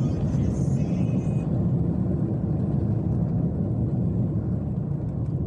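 A car driving at speed: a steady low rumble of road and engine noise heard from inside the moving car.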